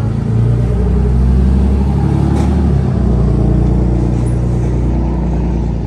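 A motor vehicle's engine running, a loud low rumble that holds steady for several seconds and fades away near the end.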